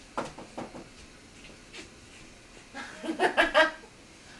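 A toddler laughing: a few short vocal sounds near the start, then a quick run of giggles about three seconds in, the loudest part.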